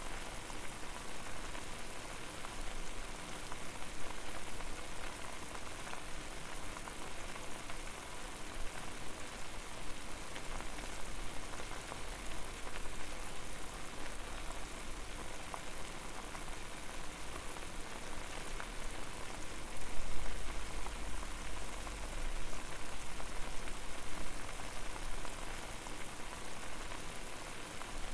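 Water boiling hard over a fire: a steady bubbling hiss made of many small pops, with a low rumble underneath that swells about two-thirds of the way through.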